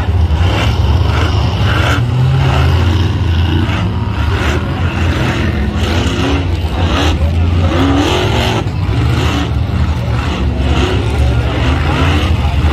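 Engines of off-road race vehicles running under load as they climb a rock course, a steady low drone that swells and eases, with crowd chatter over it.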